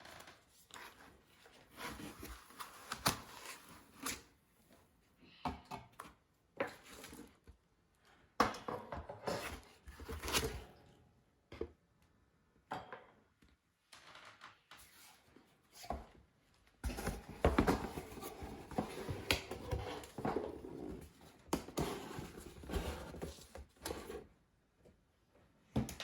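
Packaging being handled and opened: irregular rustling, scraping and sharp clicks, in two busier stretches, one about a third of the way in and a longer one in the second half.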